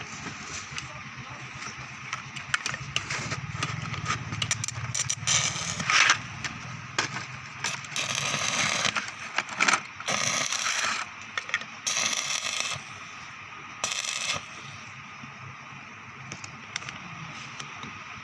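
Electric arc welding: scattered sharp crackles over a low steady hum, then several bursts of crackling arc about a second long each, from about eight to fourteen seconds in.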